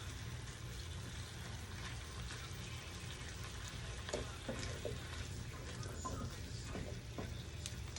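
Chayote, potatoes and onion sizzling steadily in a little cooking oil in the pot, with a few faint clicks.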